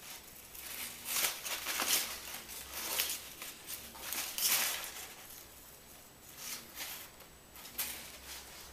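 Crumpled paper rustling and crinkling in irregular bursts as a Holland Lop rabbit grabs it in its teeth, shakes and tosses it. The bursts come thickest in the first half and thin out toward the end.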